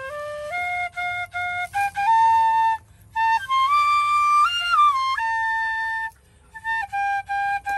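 Vietnamese bamboo flute playing a simple melody of held notes that step up and down, in short phrases with two brief breaks.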